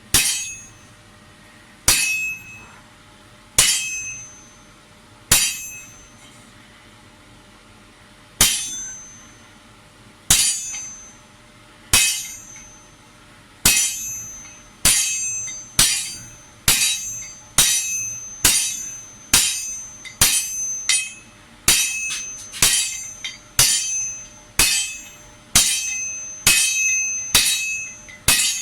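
Hand hammer striking hot metal on an anvil, each blow ringing, while a tool's conical handle socket is forged. The blows come singly about two seconds apart, then from about halfway they speed up to roughly one and a half a second.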